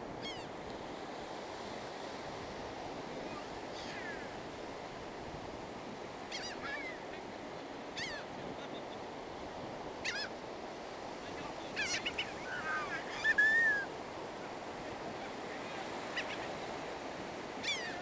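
Laughing gulls calling, short high cries that slide downward, coming every second or two with the loudest cluster a little past two-thirds of the way through, over a steady hiss of surf.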